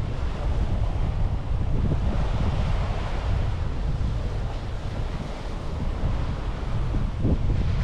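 Sea waves washing onto a beach, with wind buffeting the microphone as a steady low rumble.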